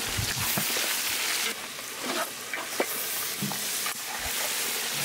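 Turmeric-and-salt-coated pangasius fish pieces sizzling as they are slid into hot oil in a large iron karahi, with a few sharp clinks of the metal ladle against the pan.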